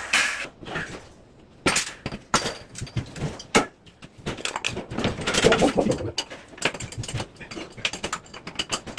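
Irregular knocks, scrapes and clatter of hand demolition work on a bathroom, with debris such as broken tile striking hard surfaces, busiest about five to six seconds in.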